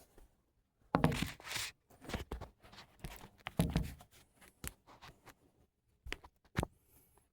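Handling noise from a phone camera being fiddled with: irregular knocks, rubbing and scraping, with two sharp clicks after about six seconds.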